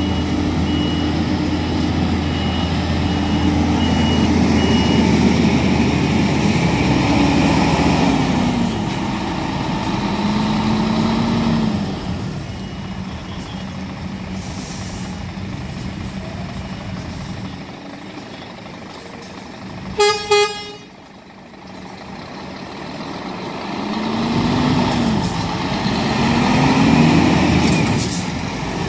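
Scania P360 tractor unit's DC11 straight-six diesel running and revving up and down as the truck manoeuvres, its pitch rising and falling twice. A reversing alarm beeps in the first few seconds and again briefly near the middle, and about twenty seconds in a horn gives two short toots.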